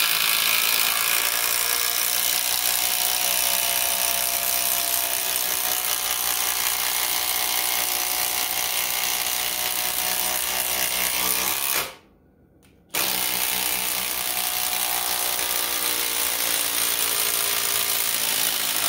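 Cordless impact driver on high speed, hammering continuously as it drives a 12-inch construction screw into wood. Its pitch sags slightly as the screw sinks deeper. It stops for about a second about two-thirds of the way through, then starts hammering again.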